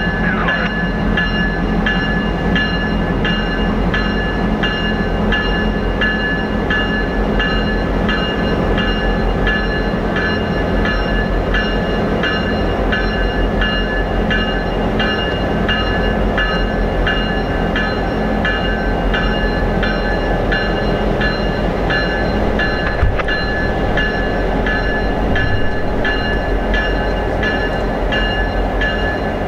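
EMD F-unit diesel locomotives running while switching, their engines giving a steady low rumble. Over it the locomotive bell rings continuously in a steady rhythm.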